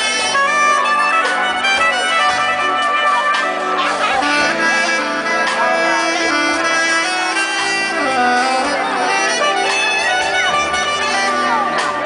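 Soprano saxophone playing a smooth-jazz melody of held and gliding notes, live, over electric bass and drums.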